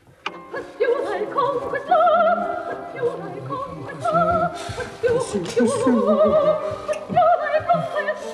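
An opera record playing on a horn gramophone: a singer with strong vibrato over instrumental accompaniment, starting abruptly.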